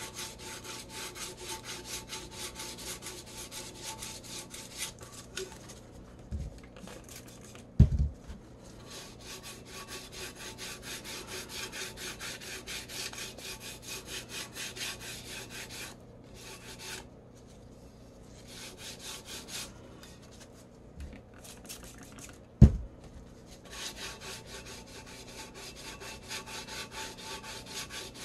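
Wet 400-grit sandpaper rubbing by hand in quick back-and-forth strokes over the clear top coat of a glitter tumbler: a light wet sanding to knock down bumps in the finish. The strokes stop a few times, and two sharp knocks stand out, about eight seconds in and again about two-thirds of the way through.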